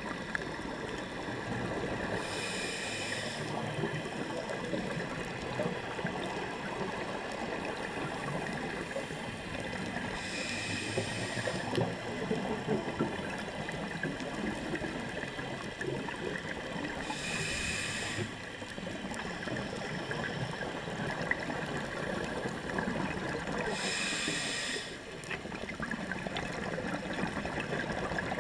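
Scuba regulator exhaling underwater: a burst of bubbles about every seven seconds, four times, over a steady underwater hiss and crackle.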